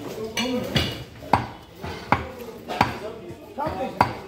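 Heavy butcher's knife chopping beef on a wooden tree-stump chopping block: about five sharp chops, roughly one every two-thirds of a second.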